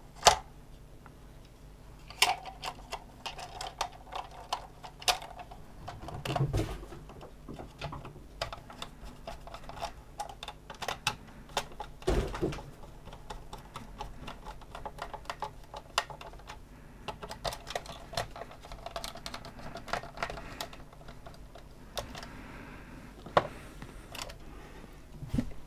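Irregular clicks, taps and knocks of hands and a screwdriver on the hard plastic of a toy's battery compartment, as a screw is driven in and the plastic battery cover is pressed into place.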